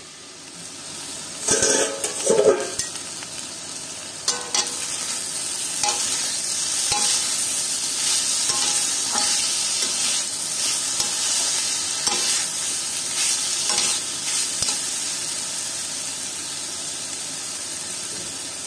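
Diced vegetables and greens sizzling as they fry in an iron kadai, while a metal spatula scrapes and stirs them in repeated strokes. A few loud metal knocks and clatters come about two seconds in.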